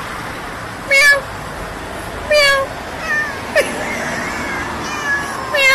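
A cat meowing again and again, several long calls falling in pitch, the loudest near the end, over the steady rushing noise of a moving car in city traffic.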